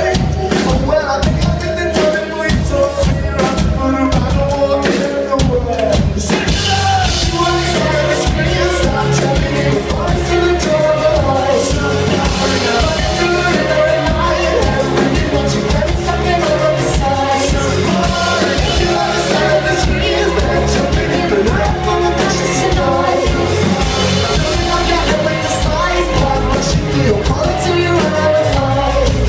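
Live band playing a song with a lead vocal over drums and bass, heard from the audience. The full band with cymbals comes in hard about six seconds in.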